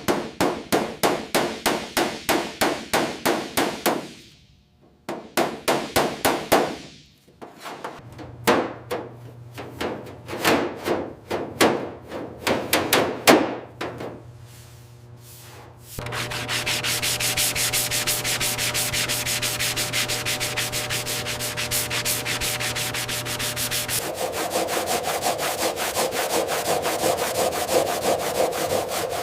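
Hand sanding and rubbing on a car's body panels in rhythmic strokes, about four a second at first, then irregular. About halfway through it changes to a denser, steadier sanding with a low hum under it, and the tone shifts again near the end.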